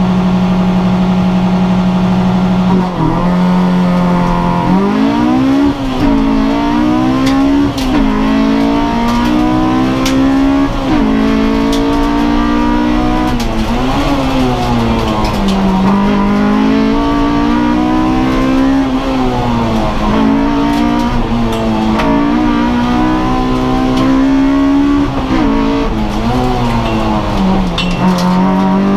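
Honda Civic race car's four-cylinder engine heard from inside the cabin. It is held at steady high revs, dips about three seconds in, then climbs away as the car launches. From there it rises and falls again and again under hard acceleration, with short drops at each upshift.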